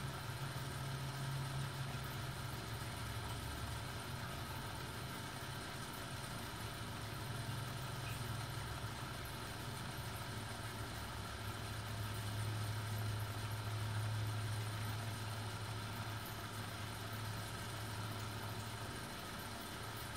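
Steady low motor hum, its pitch dipping slightly lower for several seconds in the second half.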